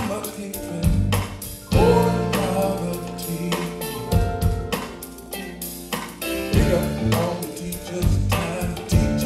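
A song with a singing voice over drums and bass, played back through L-Acoustics SYVA column loudspeakers with SYVA LOW and SYVA SUB bass units.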